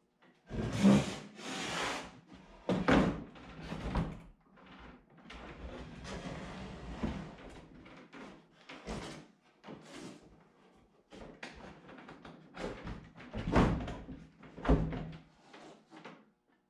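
Wooden panels and lumber supports of a plywood fold-out rooftop camper being unfolded by hand. There is a series of irregular wooden knocks and thunks, the loudest about a second in and again near the end, with scraping and rubbing of wood in between.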